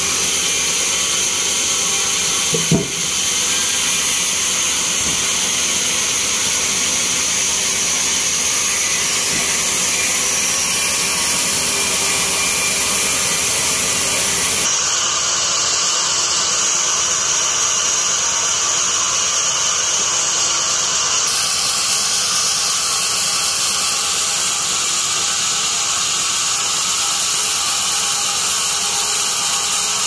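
Band sawmill running steadily with a dense, high-pitched mechanical hiss. There is a single sharp knock about three seconds in, and the sound shifts abruptly about halfway through and again a little later.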